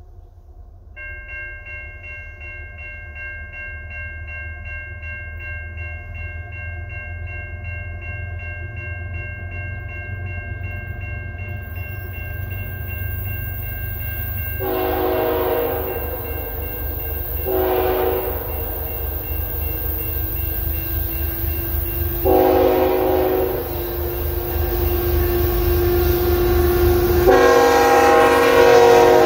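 Diesel freight train approaching, its low rumble growing steadily louder, with a bell ringing steadily through the first part. From about halfway the lead locomotive, a GE ET44AC, sounds its horn in four blasts, the last held on near the end.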